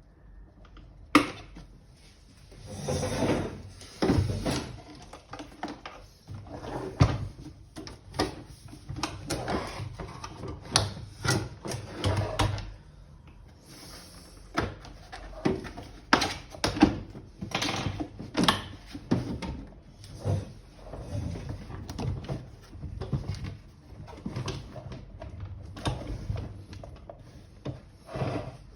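Irregular clicks, knocks and scrapes of hard plastic parts being handled and pressed together while a vacuum cleaner's motor housing is reassembled, with one sharp snap about a second in.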